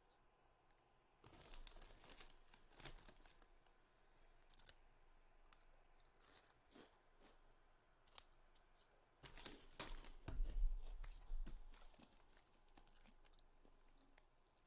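Faint crinkling, crackling and rustling of plastic being handled close to the microphone, in irregular bursts, with a louder cluster of crackles and dull bumps about ten seconds in.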